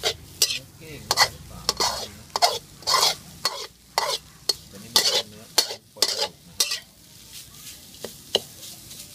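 Metal spatula scraping and stirring minced field-rat meat in a dry iron wok, roasting without oil: quick scrapes about two a second with a faint sizzle between them, pausing briefly near the end.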